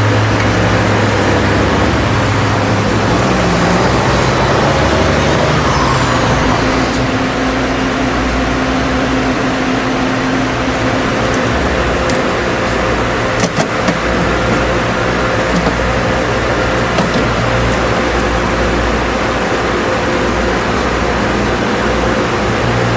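Steady, loud running noise of a vehicle, with a few short clicks partway through.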